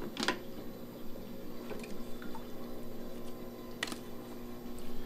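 Water trickling and dripping in a reef aquarium sump over a steady hum from the running pumps, with two faint clicks.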